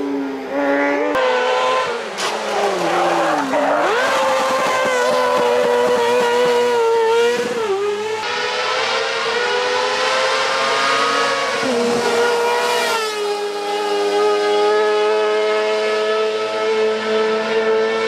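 Kart cross cars' high-revving motorcycle engines at full throttle, the pitch climbing and dropping with the throttle and gear changes. Near the end the engine holds a high, steady pitch.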